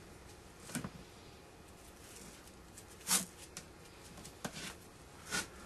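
A few short handling noises, taps and rustles, in a quiet small room as a hockey stick handle is taped. One louder tap comes about halfway through.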